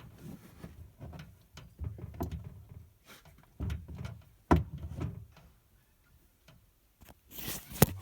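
Irregular metal clunks and knocks of hand-tool work on the truck's oil filter. The loudest knock comes about halfway through, and a short scraping rattle follows near the end.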